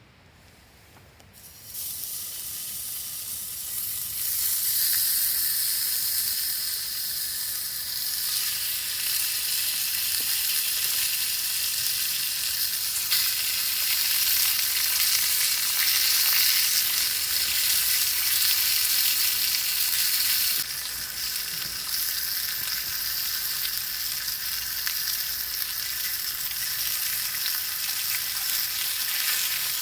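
Ham steak sizzling in a hot frying pan. The sizzle starts suddenly about a second and a half in, grows louder a few seconds later, then drops back a little about two-thirds of the way through.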